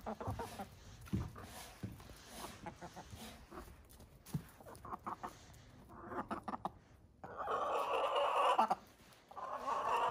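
Hens clucking softly, then giving drawn-out, loud calls from about six seconds in. The longest call lasts over a second.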